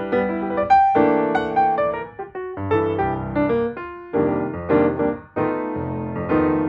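Background piano music, a run of notes and chords struck one after another.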